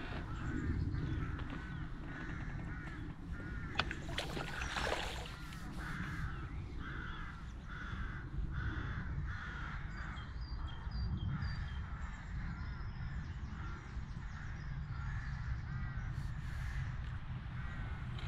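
A crow cawing, a run of harsh calls at about three every two seconds through the middle, over a steady low rumble, with a short noisy burst about four seconds in.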